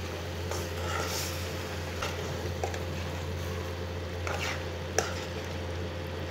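Metal spoon stirring tinda (apple gourd) pieces and masala in a metal karahi: soft scraping with a few sharp clinks of the spoon against the pan, over the food sizzling and a steady low hum.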